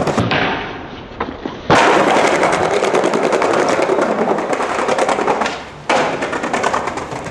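Skateboard wheels rolling over a hard plank surface, a loud rapid rattling clatter. The sound changes abruptly twice as one clip cuts to the next.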